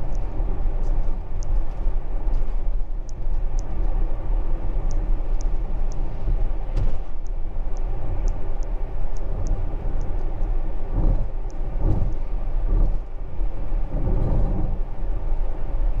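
Cabin noise of a Tesla electric car cruising at about 60 mph on a wet road: a steady tyre and road rumble, with a run of faint, regular high ticks through the first half. There are a few heavier low swells of rumble near the end.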